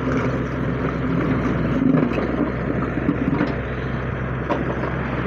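Diesel engine of a wheeled Hitachi excavator running steadily under working load as the bucket digs into a pile of bricks, with a few sharp clinks of bricks knocking together.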